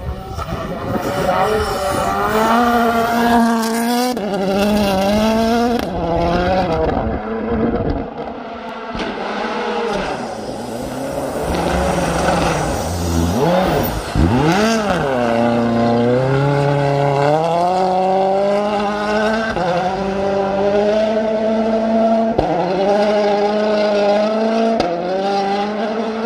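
M-Sport Ford Fiesta WRC rally car's 1.6-litre turbocharged four-cylinder engine at full throttle on snow, revving up and snapping through quick gear changes as the car passes flat out. The pitch swoops down and back up about halfway through.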